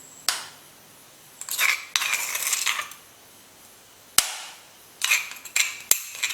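A utensil scraping and tapping crushed ginger and garlic out of the crushing vessel onto a plate: a sharp tap, a stretch of scraping, a single sharp knock, then a run of quick scrapes and taps near the end.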